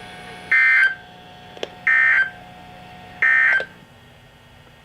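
NOAA Weather Radio's SAME digital end-of-message code: three identical short data bursts, each a harsh warbling chirp about a third of a second long and spaced a little over a second apart. It marks the end of the weekly test broadcast.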